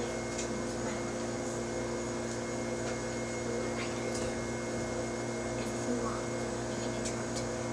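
Steady electrical hum made of several constant tones over a low room tone.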